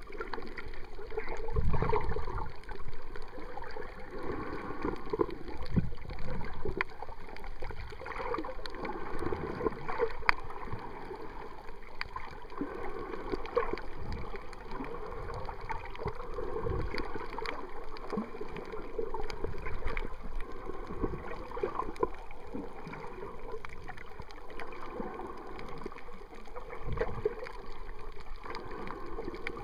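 Muffled underwater water noise of a camera moving with a snorkeler: gurgling and sloshing, with occasional low thumps and many scattered faint sharp clicks.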